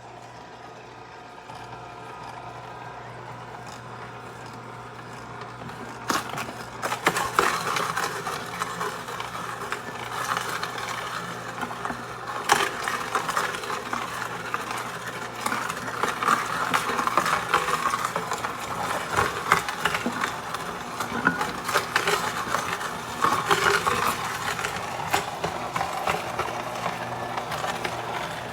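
Electric juicer motor running with a steady hum. From about six seconds in, fresh produce is fed in and crunched and ground up, with irregular cracks and crackles over the motor.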